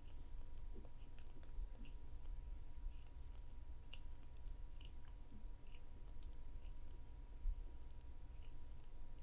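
Faint, irregular clicks of 3.5 mm colour craft wire being coiled by hand into a tight flat spiral, metal turns catching and settling against each other, over a low steady hum.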